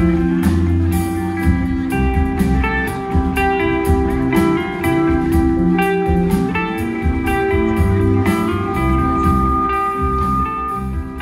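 Live band music with guitar over a steady beat, a long note held near the end.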